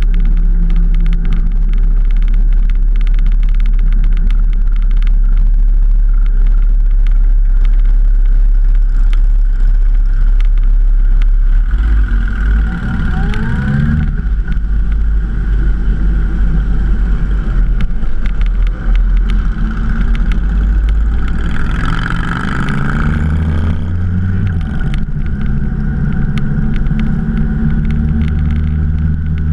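Motorcycle engine running while riding, under a heavy low rumble. The engine pitch climbs and falls twice, about halfway through and again about two-thirds through, as it revs through acceleration.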